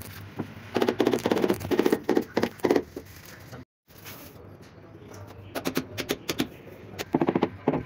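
Quick runs of sharp taps on a large ceramic wall tile as it is bedded into the adhesive, in two bursts with a short break between them.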